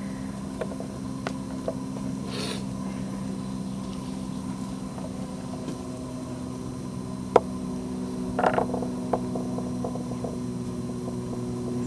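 Steady low hum with a few scattered clicks and scuffs, a sharp click about seven seconds in and a brief cluster of scuffs a second later: a climber's hands and rock shoes on sandstone as he starts up a boulder.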